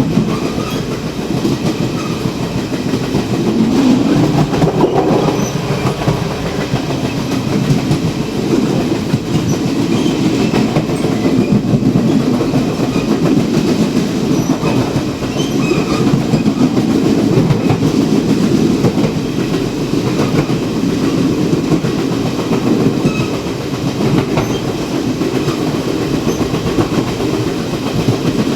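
A Taiwan Railways Chu-Kuang Express train running, heard at the gangway connection between a passenger car and the baggage car. The wheels on the rails make a loud, steady rumble, with constant irregular rattling and clanking from the car connection.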